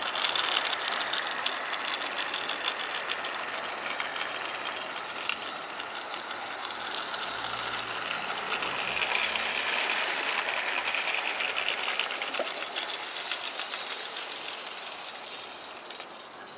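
Roundhouse live-steam garden-railway locomotive running fast, its rapid exhaust beats and steam hiss mixed with the rattle of the coaches on the track. It grows louder about nine seconds in, then fades toward the end.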